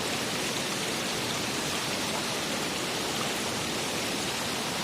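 Steady rush of water from a waterfall and its stream, an even hiss with no breaks.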